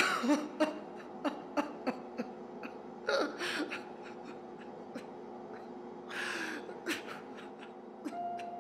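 A man breathing hard in distress, with three heavy breaths about three seconds apart and short broken vocal catches between them, over a steady low drone.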